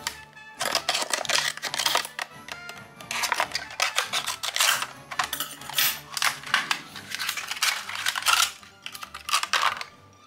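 Clear plastic blister packaging crinkling and crackling in irregular bursts as a small figure is worked out of it, over background music.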